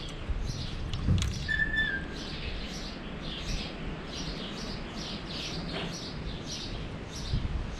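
A bird chirping over and over at an even pace, about two or three short high chirps a second, with a brief whistled note about one and a half seconds in. A couple of sharp knocks come through, one near the start and one near the end.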